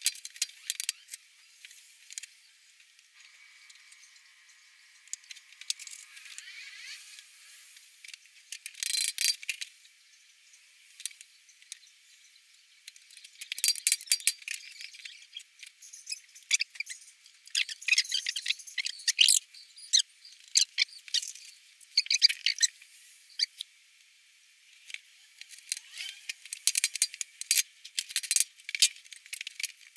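Pine strips clattering and knocking against each other and the bench as they are handled and tapped with a hammer. The sound comes as irregular clusters of sharp clicks and knocks and is thin, with no low end.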